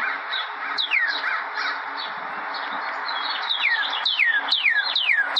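Birds calling: a busy mix of chirps early on, then, from about halfway, one bird repeating a whistled note that slides downward, about three times a second.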